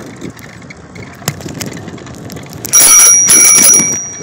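A bicycle bell rung twice in quick succession about three seconds in, its ring fading away afterwards. Under it is wind and road noise from the moving bike.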